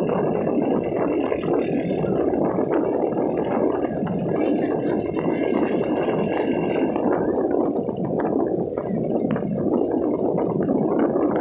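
Steady rushing noise that runs without a break.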